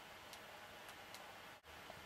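Near silence: faint room hiss with a few soft ticks.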